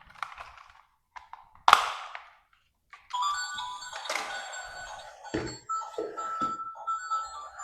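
A few light knocks and one sharp thunk, then from about three seconds in, electronic music with steady held tones and a pulsing beat.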